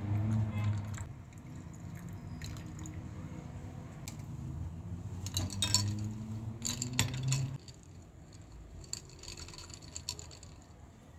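Liquid being poured into a glass, with a few sharp clinks, over a low steady hum that stops about seven and a half seconds in.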